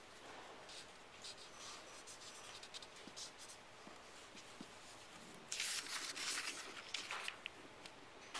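Felt-tip marker strokes scratching across paper while shading a drawing: short, faint strokes, then a louder run of quick back-and-forth strokes about five and a half seconds in that lasts nearly two seconds.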